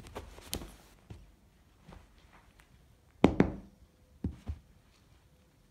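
A few scattered soft knocks and thumps on a quiet background, the loudest a quick pair about three seconds in and a weaker pair about a second after.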